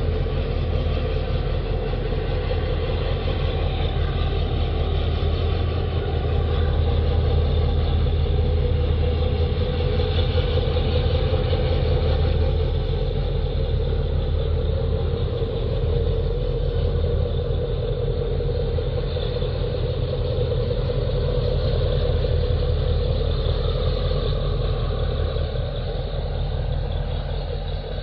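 Deep, steady engine rumble from the large bulk carrier's diesel machinery as the ship moves slowly into port.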